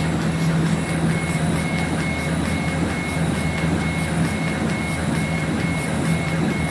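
CNC laser engraving machine running while engraving wood: a steady hum with a high whine that breaks off and resumes about twice a second.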